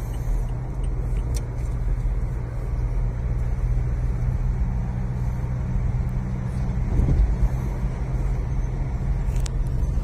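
Steady road and engine noise of a car at highway speed, heard from inside the cabin as a low rumble with a constant hum. It swells briefly about seven seconds in, as the car draws alongside a flatbed truck.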